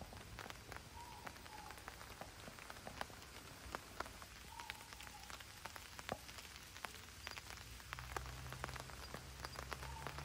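Rain falling on a Kiwi Camping tarp fly overhead: scattered separate drops ticking on the fabric over a soft, quiet patter.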